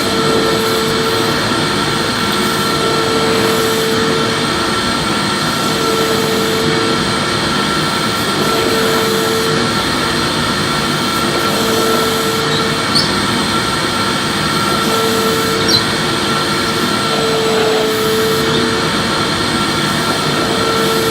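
Vacuum cleaner running steadily with a constant whine, being pushed back and forth over the floor: a lower tone swells and fades about every two and a half to three seconds. Two faint ticks about two-thirds of the way through.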